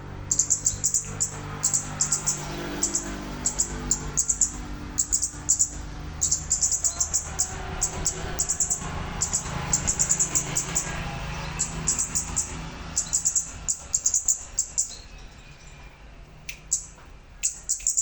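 Ốc mít bird calling: rapid clusters of short, high chirps repeated over and over, with a brief pause near the end, as used for a lure call. Steady lower-pitched sound, likely music, runs underneath.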